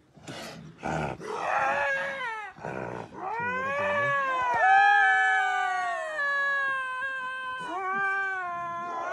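Jungle cat giving a threat display: a few harsh hisses in the first three seconds, then a long, wavering yowl of about six seconds, with another yowl starting near the end.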